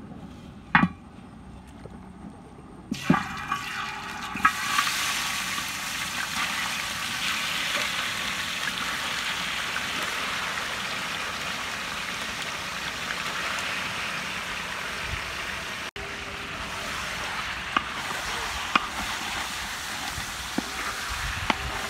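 Marinated chicken pieces dropped into hot oil in a large metal pan, setting off a loud steady sizzle that starts suddenly about three seconds in. A few sharp knocks from the wooden spatula against the pan and bowl come before and during it.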